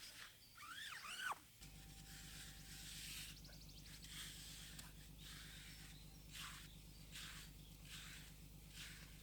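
Faint outdoor ambience: a short squeaky animal call rising and falling about half a second in, then faint high calls repeating at an even pace over a low steady hum.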